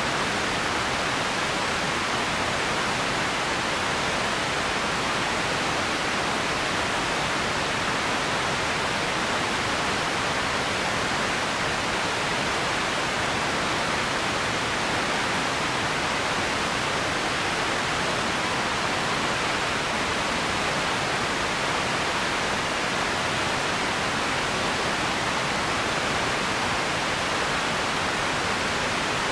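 Empty ambience noise: a steady, even hiss that does not change, strongest in the middle range and thinner in the lows.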